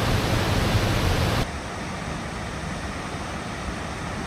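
Steady rush of water from cascading falls, which cuts off abruptly about a second and a half in, leaving a quieter, duller steady hiss.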